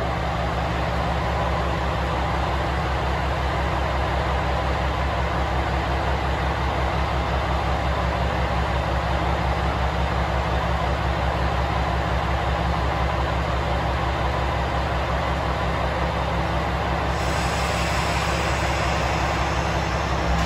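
KiHa 120 diesel railcars idling steadily, a low, evenly pulsing engine note that holds the same level throughout.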